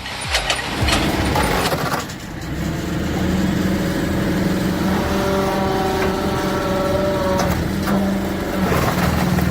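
Heavy machine's diesel engine running under load with its hydraulics working. A few sharp knocks and a rough rush of noise come in the first two seconds. After that a steady engine hum holds, with a higher whine joining for a couple of seconds in the middle.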